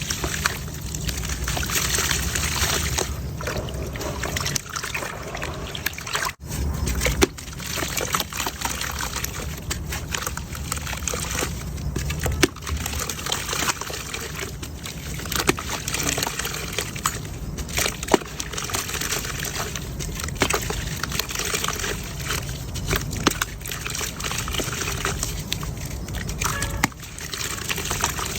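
Wet mud crumbling and falling apart in water: a steady wet crumbling with many small sharp crackles scattered through it, cutting out briefly about six seconds in.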